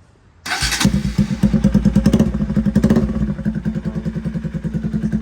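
Bajaj Pulsar NS200's single-cylinder engine starting about half a second in, then idling loudly with an even, fast exhaust beat, running open with no silencer on the header pipe.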